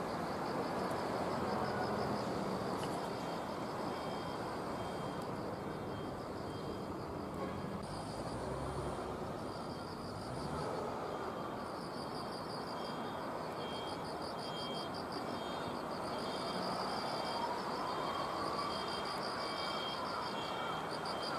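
Insects chirping in rapid, evenly pulsed trills at several pitches, over a steady low background noise.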